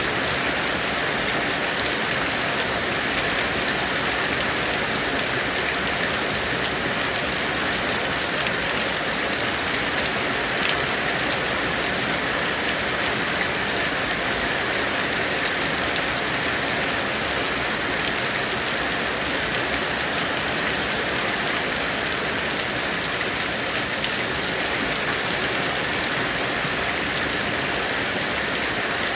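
Heavy rain falling steadily, a dense even hiss of rain on surfaces with no thunder.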